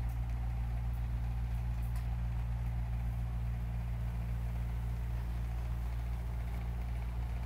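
Steady low hum with a faint hiss: room tone with no speech.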